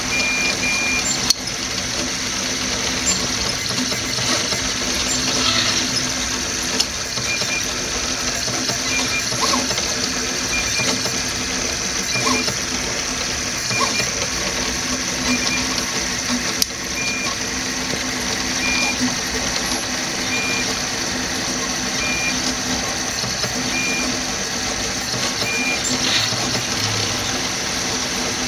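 Delta RepRap 3D printer running a print: a steady whirr of stepper motors and the hot-end cooling fan. A short high tone repeats about every second and a half, with an occasional click.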